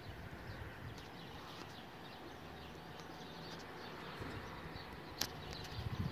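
Quiet outdoor ambience with faint, scattered bird chirps and one sharp click about five seconds in.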